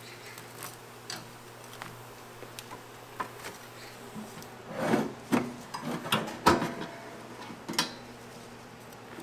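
Kitchen handling sounds of waffle making: scattered light clicks and knocks, then a run of louder knocks and scrapes about five to eight seconds in, over a steady low appliance hum.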